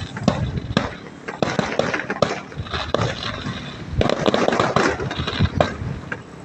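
Fireworks crackling and popping: a dense, irregular run of sharp bangs and crackles over a continuous rushing noise.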